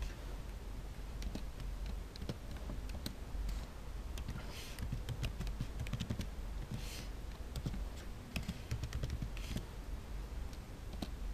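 Computer keyboard typing: irregular runs of key clicks as lines of code are entered.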